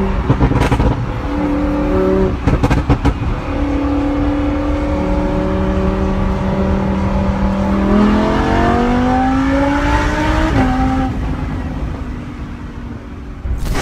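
Lamborghini Huracán's V10 engine through a Fi valvetronic catback exhaust, running at changing revs with a few short crackles in the first three seconds. It climbs steadily in pitch from about eight seconds in, drops sharply at an upshift, then fades.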